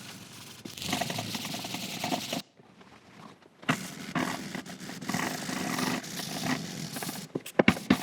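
Scotch-Brite pad scrubbing the WD-40-wetted cast iron band saw table to take off surface rust, in two stretches of rubbing with a short pause between, and a few sharp clicks near the end.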